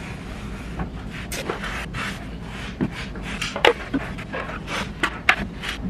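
Utility knife scraping through the paper face of a drywall sheet in repeated short strokes, then a few sharp cracks in the second half as the board is bent and snapped along the score.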